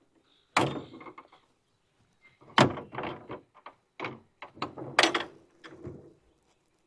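A run of hard knocks and clatters: four main bangs spread over about five seconds, each followed by a few smaller rattling knocks, like something being banged and handled.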